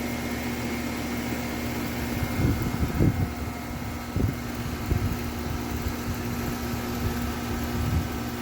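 Carrier central air conditioner's outdoor unit running: a steady compressor hum with the condenser fan's even whoosh. A few low rumbles on the microphone come a few seconds in.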